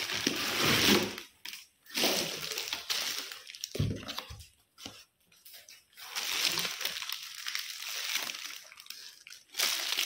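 Plastic wrapping and packaging crinkling as a wrapped gift is handled and unpacked, in several stretches with short pauses between them.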